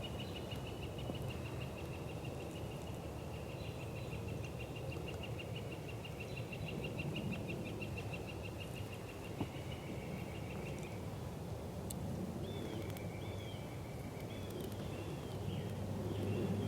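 Field ambience: a steady, rapidly pulsing insect trill, with a few short bird chirps over it in the second half and a low background rumble.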